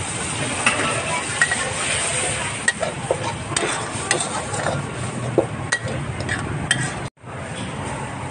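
Food frying in a pan, a steady sizzle, with a metal utensil clinking and scraping against the pan many times. The sound cuts out for a moment about seven seconds in, then the sizzle carries on.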